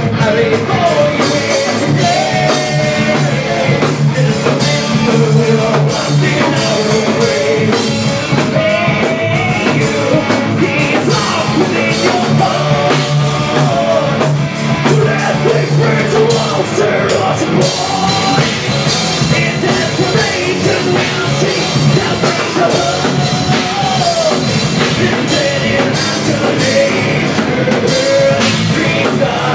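Thrash metal band playing live: distorted electric guitars, bass guitar and drum kit, with a voice singing over them.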